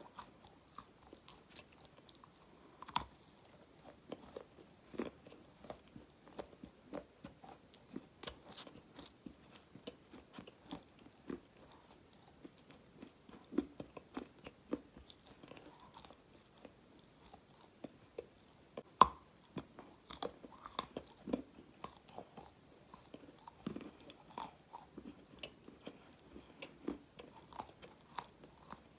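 Dry black edible clay being bitten and chewed close to the microphone: a steady run of small crisp crunches and creaks, with one louder crack about two-thirds of the way through.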